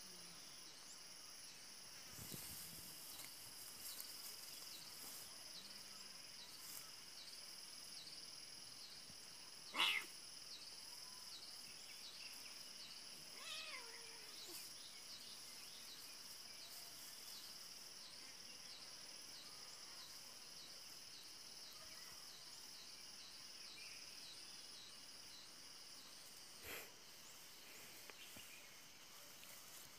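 Cat crying out while play-fighting with a dog: a short sharp cry about ten seconds in, a falling meow a few seconds later, and a fainter cry near the end. Under it, a steady, evenly pulsing chirr of insects.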